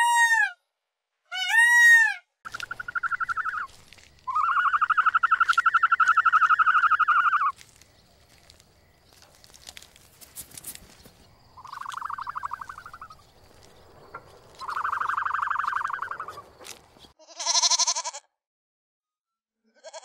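Two loud peacock calls in the first two seconds, then four quavering goat bleats spread over the next fourteen seconds, the second one long at about three seconds. A short, higher call comes near the end.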